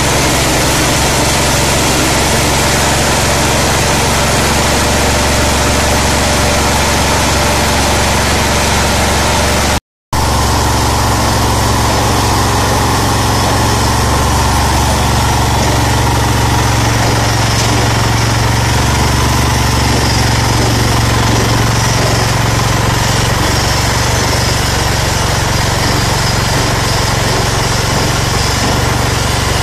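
Mini rice huller driven by a small single-cylinder engine running on LPG, both running steadily under load as the huller mills paddy. The sound cuts out completely for a split second about a third of the way through.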